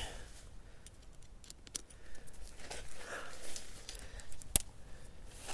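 Tent body clips being snapped onto the tent poles, with light rustling of the tent fabric and scattered small clicks; one sharp click stands out near the end.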